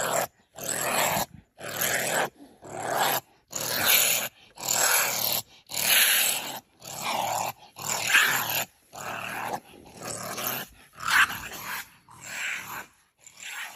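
Honey badger calling in a run of harsh, raspy bursts, about one a second.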